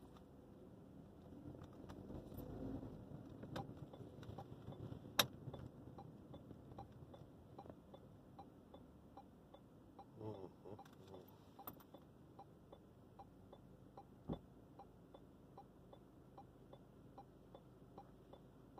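A car's turn signal ticking steadily and faintly, about three clicks a second, over low cabin noise, with a few sharper single clicks and a short soft sound about ten seconds in.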